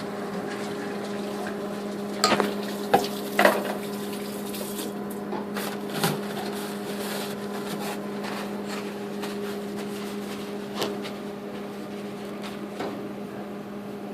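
Microwave oven running with a steady hum while eggs cook inside, with a few sharp pops between about two and three and a half seconds in and single pops near six and eleven seconds, the eggs spattering as they heat.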